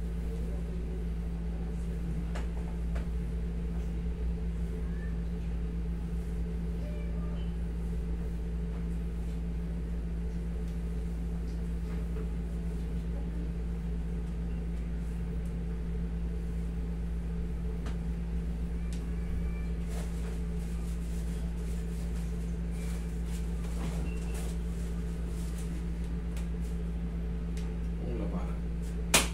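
Steady low hum of a room air conditioner, with a few faint ticks and one sharp click just before the end.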